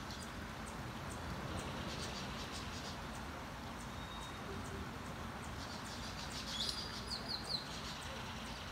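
Outdoor daybreak ambience: insects chirping in short repeated high ticks over a steady hiss, with a bird giving a quick run of sharp, high call notes about seven seconds in.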